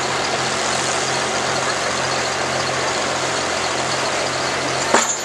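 International pulling tractor's engine idling steadily at the sled, with a sharp knock near the end.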